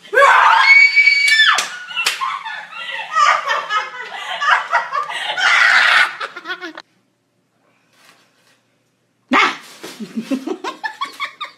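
A woman's loud, high-pitched scream of fright, held for about a second and a half, breaking into laughter that runs for several seconds and then cuts off. After a couple of seconds of silence, voices and laughter start up again.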